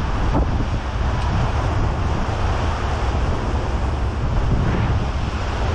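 Wind buffeting the microphone on the deck of the Catalina Flyer ferry under way, over a steady low rumble from the boat and water rushing past the hull.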